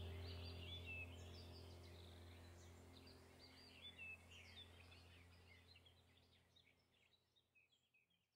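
Small birds chirping and twittering rapidly over a steady low hum, the whole sound fading out gradually and nearly gone by the end.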